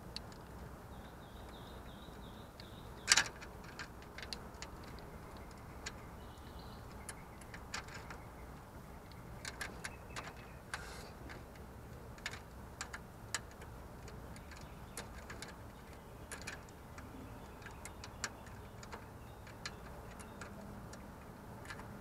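Scattered light clicks and taps from hand work on a coolant hose and its clamp at a Prius inverter water pump, with one louder knock about three seconds in.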